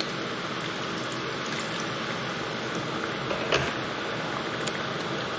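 Curry sauce sizzling and bubbling in a frying pan on the hob, with a few small sharp pops, as water is poured in.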